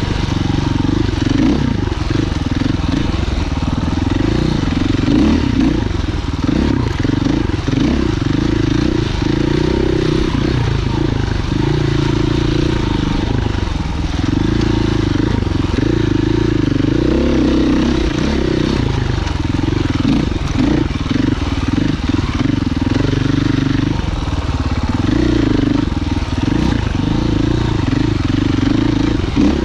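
Husqvarna FE 501's single-cylinder four-stroke engine running under load while being ridden on a dirt trail, its pitch rising and falling continually as the throttle is opened and closed.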